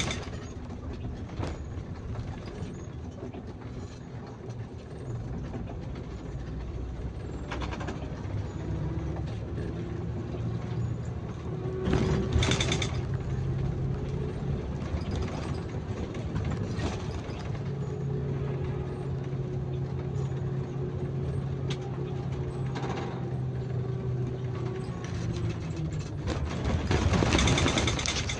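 Bus engine and road noise heard from the driver's cab at cruising speed, a steady drone with a low hum holding one pitch. It swells into a louder rushing noise about twelve seconds in and again near the end.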